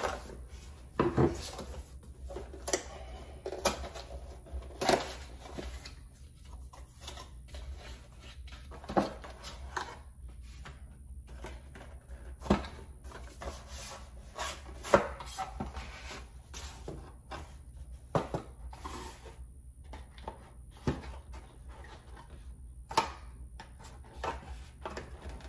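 Cardboard packaging being opened by hand: a knife slits the tape on a small box, then the flaps and folded inner cardboard are pulled apart, with irregular taps, scrapes and rustles.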